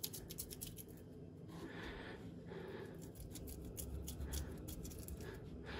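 A wooden stamp pressed and worked into damp, sandy excavator clay by hand, making a run of faint gritty crunches and scrapes.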